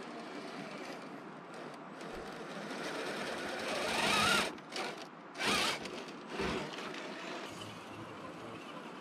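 Electric motor and geared drivetrain of a 1/10-scale RC rock crawler whining as it climbs over rocks. The whine builds to a peak near the middle, then comes in several short, louder throttle bursts before settling back.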